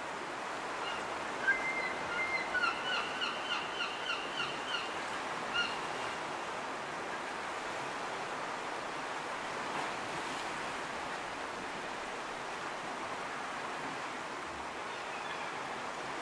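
Sea surf washing on a rocky shore, a steady rush. About a second and a half in, a bird gives a quick run of short, high, repeated call notes, about four a second, for around four seconds.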